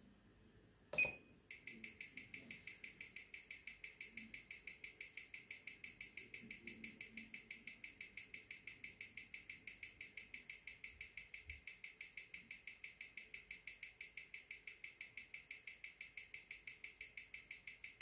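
Amplified ticking of a Seiko 6R15 automatic movement on a timegrapher's speaker: an even, fast train of ticks at about six a second (21,600 beats per hour), starting after a sharp click about a second in. The movement is running at low amplitude, around 190 degrees, which the owner puts down to bad factory lubrication.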